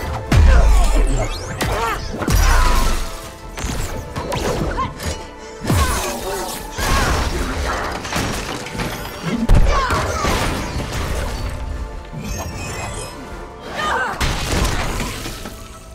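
Action-film soundtrack: dramatic music over a rapid series of heavy thuds, crashes and shattering debris from a fight, with deep booming hits about half a second in, around two and a half seconds, and again near the middle and end.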